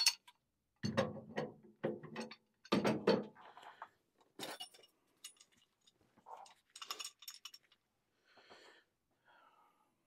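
Metal tools and parts being handled, knocking and clinking: several sharp knocks in the first three seconds, then scattered lighter clinks and rattles.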